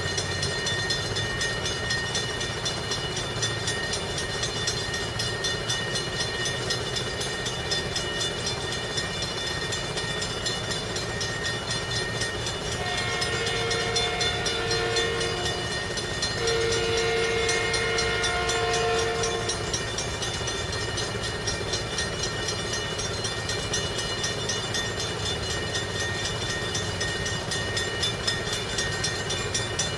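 Railroad crossing warning bell ringing steadily and fast, as the crossing signals flash for an approaching train. About halfway through, the approaching train's horn sounds two long blasts.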